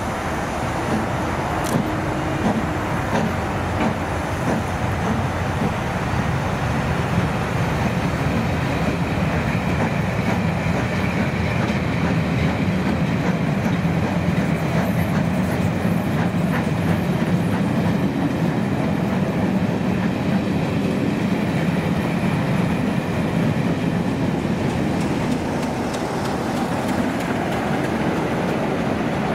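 Vintage passenger coaches behind a steam locomotive rolling past on a curve: a steady rumble of wheels on the rails, slightly louder around the middle.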